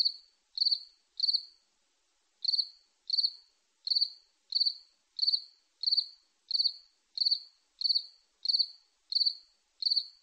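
A cricket chirping steadily, about three chirps every two seconds, each chirp a quick run of a few high-pitched pulses. One chirp is skipped about two seconds in.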